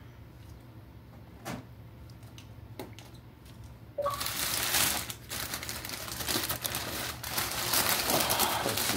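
A few faint clicks, then from about four seconds in, brown kraft packing paper crinkling and tearing without a break as it is unwrapped by hand.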